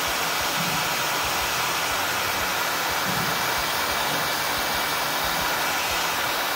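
Electric heat gun blowing steadily, shrinking a heat-and-glue sealed butt connector over a crimped wire splice.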